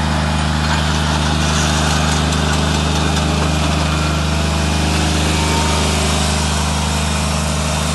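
Engine of a ride-on deep drill aerator running at a steady, unchanging pitch as the machine works the turf.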